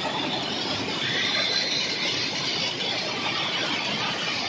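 Railway track maintenance machine working on the ballast: steady, dense mechanical running noise with a thin high squeal over it from about a second in.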